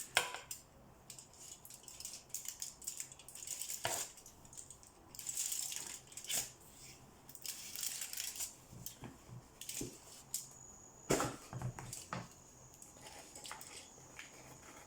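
Scattered light taps, clicks and rustles of hands and utensils working cookie dough and setting cookies out, with sharper knocks about 4 s and 11 s in.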